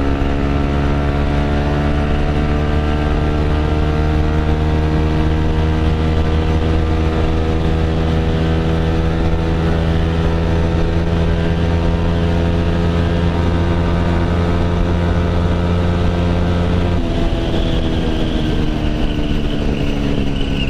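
Yamaha WR155's single-cylinder engine through a GP7 Max 4.1 aftermarket exhaust, held open in fifth gear on a top-speed run, its pitch climbing slowly. About seventeen seconds in the throttle eases and the pitch drops and sinks gradually. Wind noise comes through the open helmet visor.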